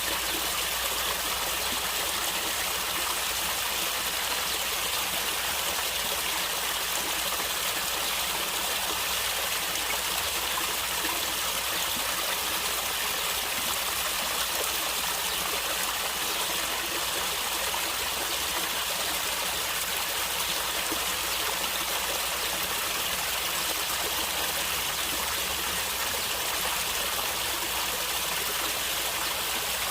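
Stream water running and trickling steadily over rocks, an even rushing with a light gurgle and no change throughout.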